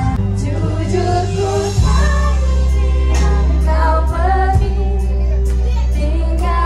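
A woman singing into a microphone, amplified over loud backing music with a steady heavy bass, karaoke-style through loudspeakers.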